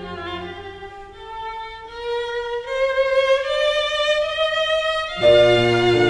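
Instrumental background music: a single high melody line climbs slowly step by step, then a fuller, louder chord with a low part comes in a little after five seconds in.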